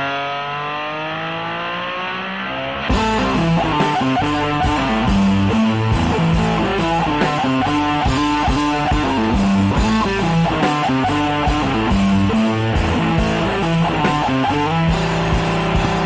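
Rock music with electric guitar: a held chord rings out, then about three seconds in the music gets louder as a steady beat with drums and bass comes in under the guitar.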